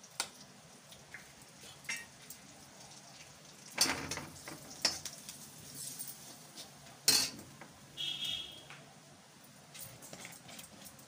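A metal spoon clinking and scraping against a steel kadhai and a spice tin, with two sharp clanks about four and seven seconds in, over a faint sizzle of garlic and chillies frying in hot oil.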